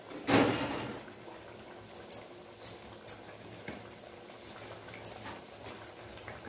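Spinach-potato curry simmering in a wok on a gas burner, with small bubbling pops every half-second or so over a low steady hum. A short burst of noise comes about half a second in.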